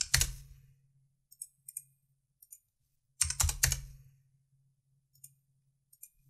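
Computer keyboard typing in two short bursts about three seconds apart, with a few single key or mouse clicks between them, as dimension values are keyed in.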